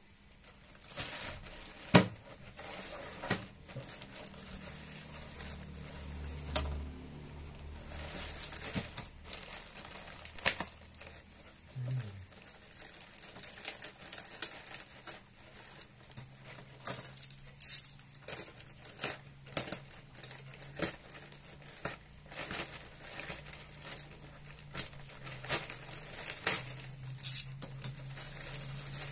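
Plastic courier mailer bag and its packing tape crinkling and tearing as the parcel is ripped open by hand, in irregular crackles and sharp rips.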